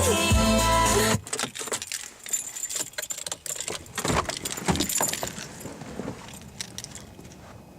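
Music with a steady beat cuts off about a second in, followed by a run of irregular small clicks and jangling rattles that thin out and fade.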